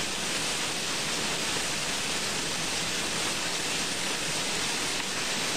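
Heavy rain and very high thunderstorm winds beating on a moving car, a steady dense hiss.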